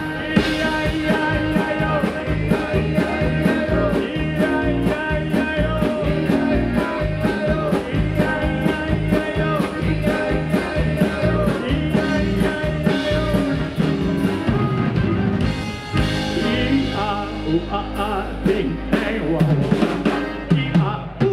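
Live polka band playing: piano accordion, drum kit, keyboard and electric guitar, with a man singing. The steady drum beat stops about sixteen seconds in, leaving held chords.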